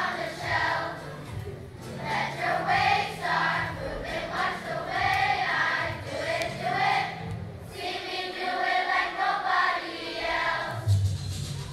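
A large choir of fourth-grade children singing a song together, in sung phrases separated by two short breaks.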